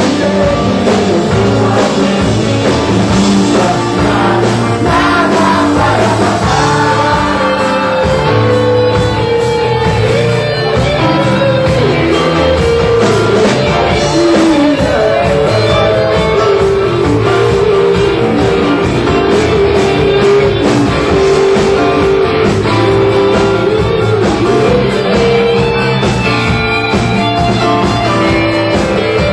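Live band playing a Brazilian pop-rock (MPB) song, with drum kit, bass and electric guitar under a gliding melodic lead line.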